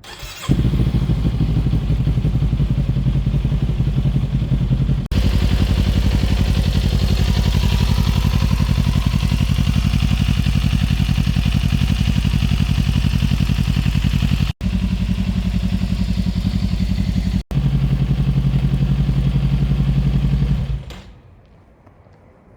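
Harley-Davidson Sportster S's 1250 cc V-twin engine starting about half a second in and running steadily and loudly, its battery revived. The sound is cut off briefly three times and dies away about 21 seconds in.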